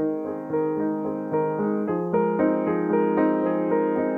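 Solo Fazioli grand piano playing a flowing passage: a steady stream of notes struck every half second or so, ringing on over sustained lower notes.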